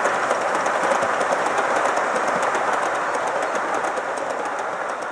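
Gauge One model train running on the garden railway track: a steady rumble with rapid clicking from the wheels, slowly getting quieter.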